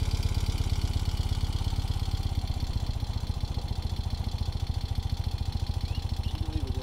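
A 1976 BMW R60/6's air-cooled flat-twin engine idling steadily with an even, rapid pulse.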